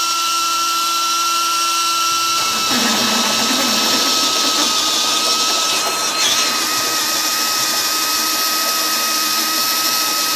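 Cordless Milwaukee M18 drill driving a hole saw into a wooden beam: a steady motor whine under load that turns rougher and grindier about two and a half seconds in as the teeth bite. It is a slow cut, the hole saw clogging with chips and gaining only about an eighth of an inch.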